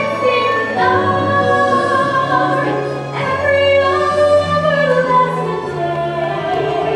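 Solo female voice singing a musical-theatre ballad in long held notes over steady instrumental accompaniment.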